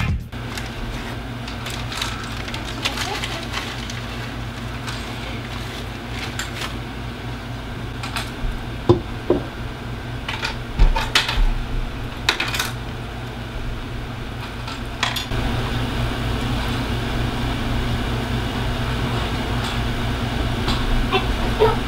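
Steady low hum of a portable air conditioner running in a small room, with scattered light clicks and clatters of a toddler handling plastic toy-kitchen pieces.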